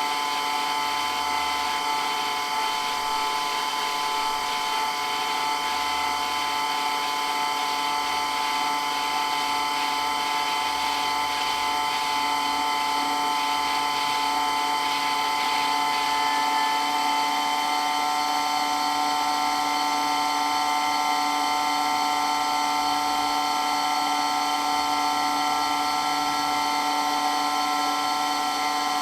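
Water pump running steadily with a loud, even whine made of several held tones.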